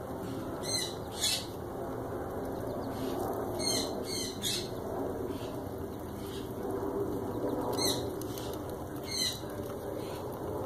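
A few short, high bird chirps scattered through, over a steady low background noise.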